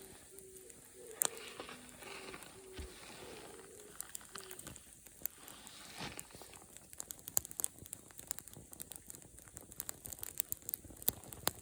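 Wood fire crackling, with sharp pops and snaps that come thicker in the second half. A few faint short held tones sound in the first five seconds.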